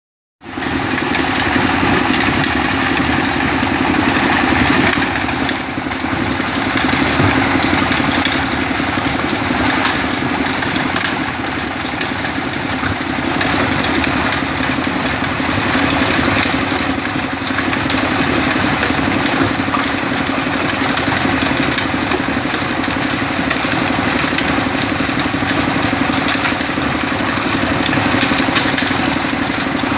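Stone crusher sand-making machine running, grinding rock into fine sand: a loud steady mechanical drone with a dense gritty rattle, starting just after the opening.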